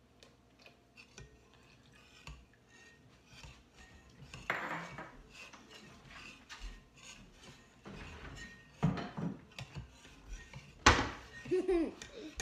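Danish dough whisk stirring a wet mix in a ceramic mixing bowl, scraping and clinking against the bowl's sides, with two louder knocks about four and a half and eleven seconds in.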